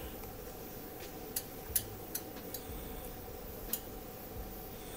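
Quiet workbench room tone: a steady low electrical hum with a few scattered light clicks, the clearest about one and a half seconds in.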